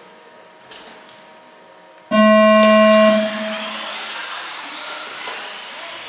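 A race start signal: a single steady electronic tone about two seconds in, held for about a second. The 4WD RC buggies then pull away, their electric motors making a rising whine.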